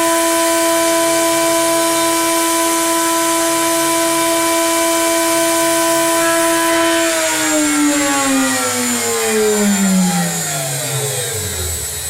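CNC mill spindle motor running with a steady high whine, then switched off about seven seconds in and spinning down, its pitch falling steadily until it has nearly stopped near the end.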